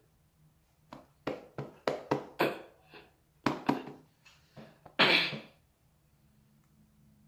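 A person coughing and spluttering on a mouthful of dry ground cinnamon: a string of short coughs, then one longer, louder cough about five seconds in.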